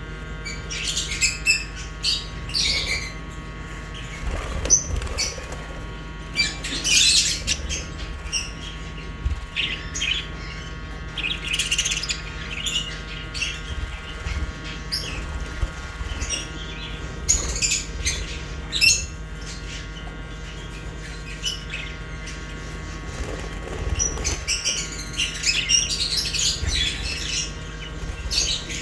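A flock of pet budgerigars and lovebirds chirping and tweeting in quick, irregular bursts, livelier in several spells, over a steady low hum.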